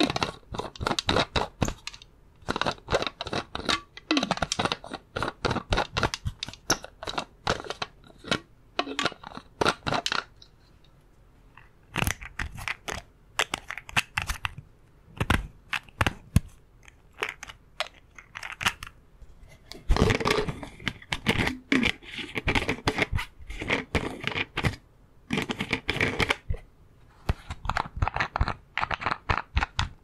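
Plastic bottle's screw cap being twisted open and closed over and over: runs of quick clicks and scratchy crackling, with a short pause about a third of the way through.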